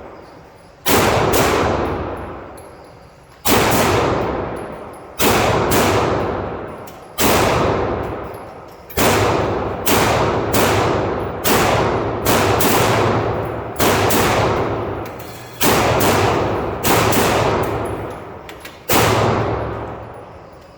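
Glock 17 9mm pistol fired in slow, steady succession, about a dozen shots one to two seconds apart, each followed by a long echoing decay.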